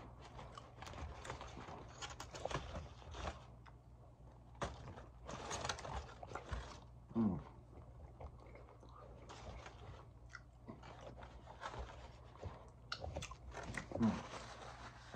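Close-miked eating of a chicken gyro in pita: chewing and biting, with the paper-and-foil wrapper crinkling as it is handled. Two brief low hums from the eater, one about halfway through and one near the end.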